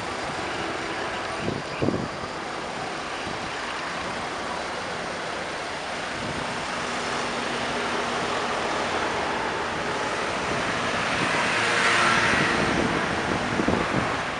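Street traffic heard from a bicycle riding alongside a queue of cars, scooters and a bus: a steady hum of engines idling and running, with two short knocks about two seconds in and a swell of noise around twelve seconds in.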